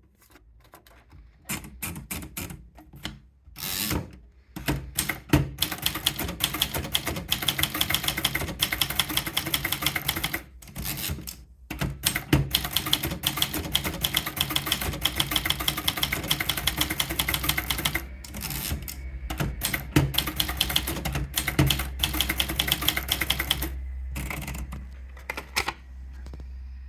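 Brother typewriter being typed on. A few scattered key strikes lead into fast runs of keystrokes broken by short pauses, with a steady low hum underneath in the second half.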